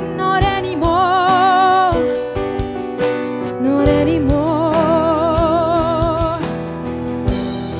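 A live band playing a slow song: a woman sings long held notes with vibrato over acoustic guitar, keyboard and an electronic drum kit keeping a steady beat.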